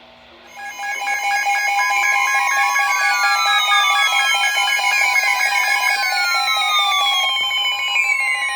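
Emergency Alert System tones start about half a second in: warbling data bursts of the SAME header and the steady two-tone attention signal. Several other tones slide up and down in pitch on top of them. This marks the start of a new alert, here a severe thunderstorm warning.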